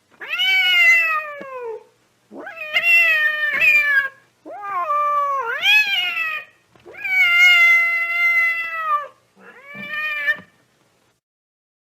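Domestic cat yowling: five drawn-out howling calls in a row, each a second or two long, with a wavering pitch. One call dips and rises, one is held long and steady, and the last is shorter. The calls stop about a second before the end.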